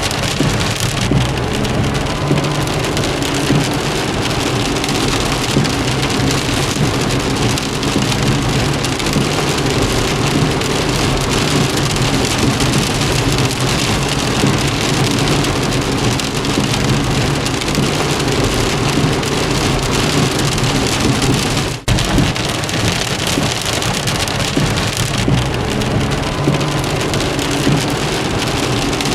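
Steady rain drumming on a car's roof and windows, with a low steady hum beneath it. The sound drops out for an instant about three-quarters of the way through.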